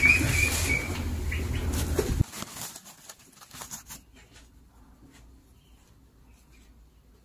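Woven plastic feed sack rustling as it is handled, with a brief high squeak near the start. After about two seconds it cuts off suddenly to a faint background with a few light ticks.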